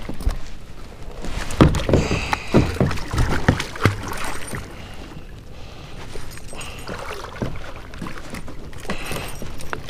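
A large catfish thrashing and splashing at the water's surface beside a kayak as it is released: a run of loud splashes in the first few seconds, then quieter lapping water.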